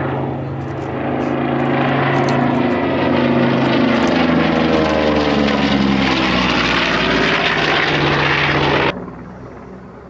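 North American B-25J Mitchell's two Wright R-2600 Twin Cyclone radial engines running as the bomber flies past low overhead, a loud propeller drone that swells over the first few seconds. About nine seconds in the sound cuts off abruptly to a much fainter drone.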